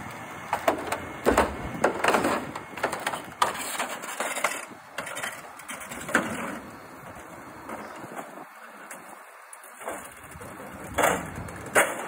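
Irregular crunching, creaking and knocks from a jackknifed semi tractor-trailer being dragged straight through packed snow by a heavy wrecker. The noises come thickest in the first few seconds and again near the end, with a quieter stretch between.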